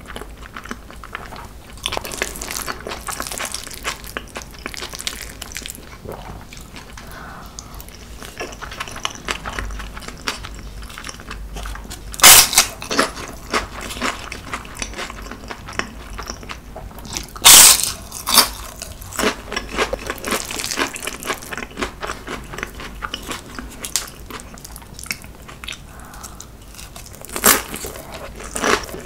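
Close-miked eating sounds: steady chewing broken by sharp, crisp crunches from biting into fried seaweed chips (gim-bugak), three loud bites standing out about twelve, seventeen and twenty-seven seconds in.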